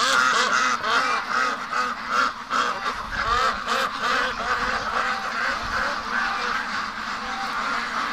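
A large flock of domestic ducks, mostly Pekins, quacking all at once in a dense chorus of overlapping calls.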